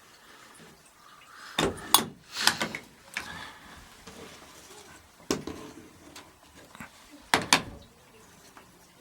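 Separate sharp metallic clicks and knocks of a wrench working on the new bathroom mixer's nuts as they are tightened onto the wall fittings. There are about half a dozen, the loudest around two seconds in and again near the end.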